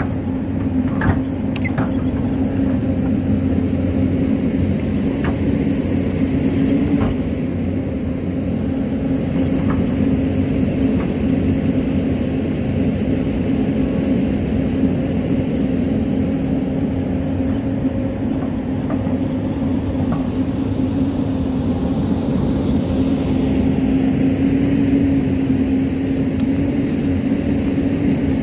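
Hyundai crawler excavator's diesel engine running steadily under digging load, with a few sharp knocks of bucket and stones in the first seconds. From about three-quarters of the way in, a rushing hiss of soil spilling from the bucket rises over the engine.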